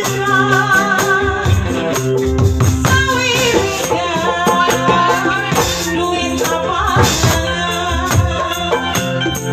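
Live music with a singing voice and a hand-played tambourine jingling along to the beat.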